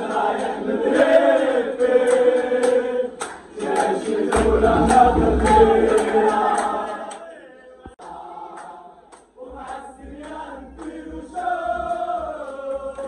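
A crowd of football supporters singing a chant together in unison. The singing breaks off about seven seconds in, and after a lull quieter group singing starts up again.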